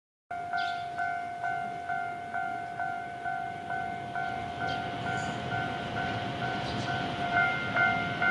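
Japanese railway level-crossing alarm ringing its repeated electronic two-tone clang at about two strikes a second. Near the end a higher tone joins, with the strikes falling more thickly.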